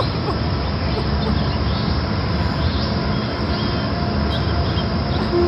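Steady low rumbling noise, with faint short chirps like birds scattered over it.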